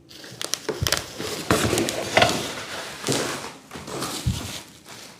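Handling noise from unpacking C-stand parts: irregular rustling and crackling of packaging with scattered taps, and a few heavier knocks about a second in, at one and a half seconds, and near the end.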